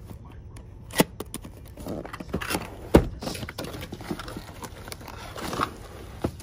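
A cardboard box being handled and opened: two sharp knocks, about one and three seconds in, the second the loudest, with rustling of cardboard and plastic wrap in between and near the end.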